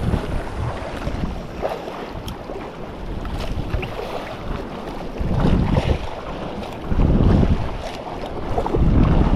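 Wind buffeting the microphone in gusts over the sea noise around a small fishing boat, with louder gusts about halfway through and near the end.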